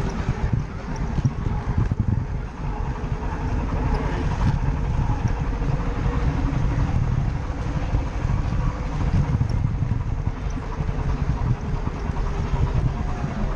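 LEGO train rumbling and rattling steadily along plastic track, heard close up from a camera riding on the train.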